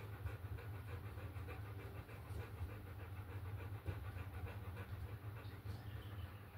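A dog panting in quick, even breaths, over a steady low hum.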